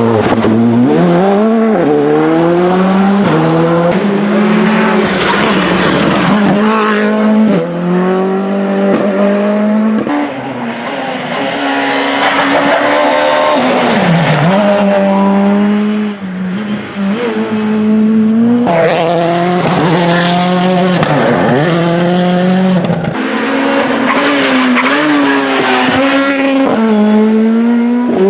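Rally car engines revving hard on a special stage, the pitch climbing and dropping again and again as they accelerate, shift and lift for corners, with tyre squeal and skidding. The sound changes abruptly about 23 seconds in, as if to another car or shot.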